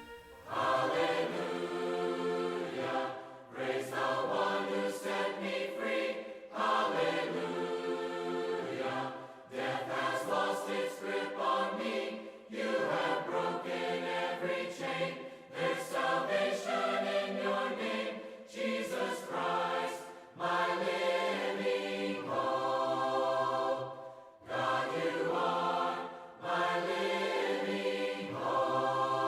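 Background choral music: a choir singing slow, sustained phrases separated by short breaths, with no clear words.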